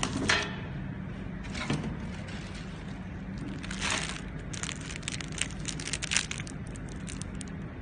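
Clear plastic film packets of wooden spoons crinkling and crackling as they are handled, over the steady hum of a running automatic cutlery packing machine. The crinkling comes in short spells, thickest a little past halfway.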